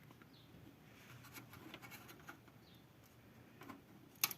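Faint handling noises from the opened overhead projector: light scratches and small clicks of its parts being touched, with one sharper click near the end.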